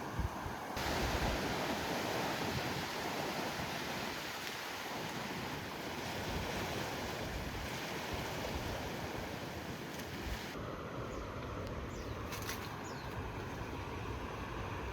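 Ocean surf washing on the shore with wind buffeting the microphone, a steady noisy rush whose tone shifts abruptly twice.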